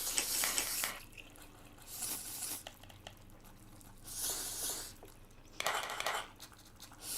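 Close-miked eating noises: about four short bursts of hissy mouth sounds, roughly two seconds apart, with faint clicks of utensils between them.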